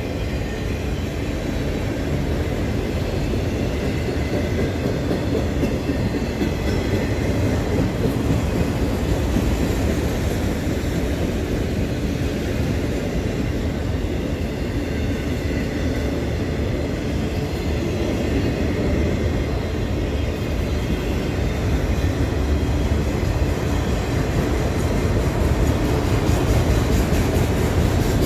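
Autorack freight train rolling past, a steady rumble of wheels on rail with some clickety-clack, growing a little louder near the end.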